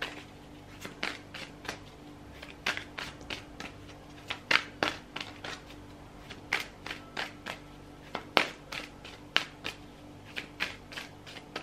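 A tarot deck being shuffled by hand: an irregular run of short card slaps and clicks, several a second.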